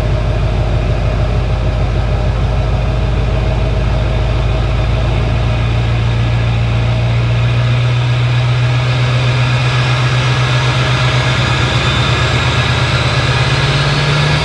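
Chevy Duramax 6.6-litre V8 turbodiesel running through a 5-inch straight-pipe exhaust, with a steady low drone. About halfway through, a high turbo whistle comes in and slowly rises in pitch.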